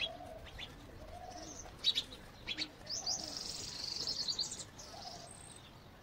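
Small birds chirping in sharp high notes, with a dense run of twittering from about three seconds in, while a dove coos low in the background about four times.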